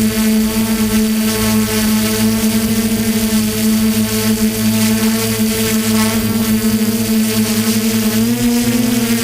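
DJI F450 quadcopter's brushless motors and propellers droning steadily in flight, mixed with wind noise. The pitch rises slightly about eight seconds in.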